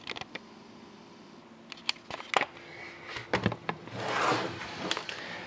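Handling noise: a scatter of light clicks and taps, with a short rustle about four seconds in.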